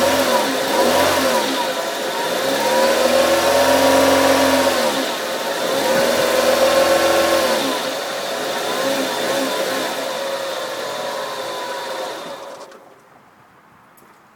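Fiat Grande Punto petrol-or-diesel engine being revved up and back down several times, then running steadily before cutting out near the end; this is the engine noise the owner is questioning.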